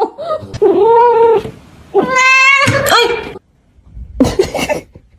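An animal calling: two long, drawn-out wails of about a second each, the second higher and brighter, then a few shorter cries near the end.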